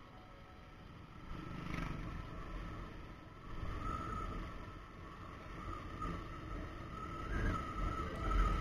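Bajaj Avenger 220's single-cylinder engine running while riding along, with wind and road noise on the microphone. The low rumble swells and dips several times and is loudest near the end.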